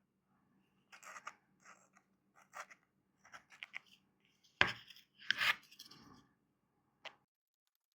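Faint scattered clicks, scrapes and rustles of hands working on a subwoofer driver while gluing its new foam surround to the cone, with a sharper knock about four and a half seconds in and a short cluster of louder scrapes just after.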